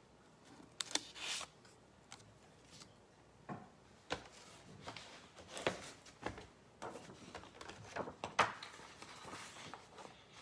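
Scissors cutting paper by hand, with the paper rustling as it is turned: irregular short snips and rustles, the loudest about a second in and near the end.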